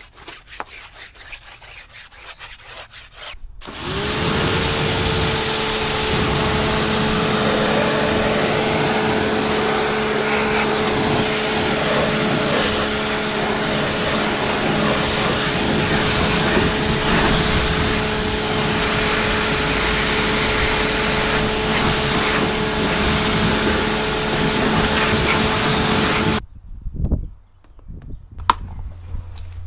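A machine's motor starts about four seconds in, spins up to a steady whine over a loud rushing noise, runs for about twenty seconds, then cuts off suddenly.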